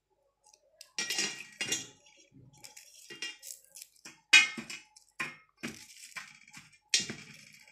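Kitchen knife and garlic cloves clinking against a stainless steel plate as cloves are cut in half and peeled: several sharp metallic clinks with a short ring, the loudest about four seconds in.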